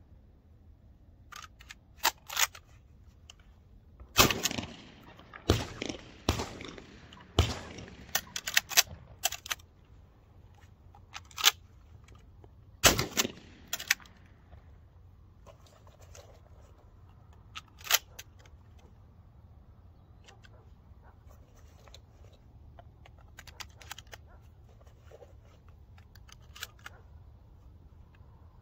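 Shotgun shots during a dove hunt: a string of loud, sharp reports with an echo tail about four to eight seconds in, and one more shortly past the middle, with smaller sharp clicks and clacks scattered around them.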